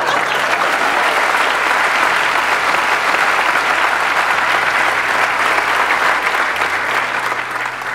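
Large audience applauding steadily, the clapping easing off near the end.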